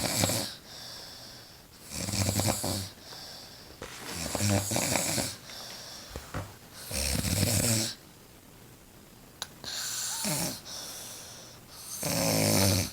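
A woman snoring insanely loud while asleep, one harsh rasping snore about every two and a half seconds, five in a row.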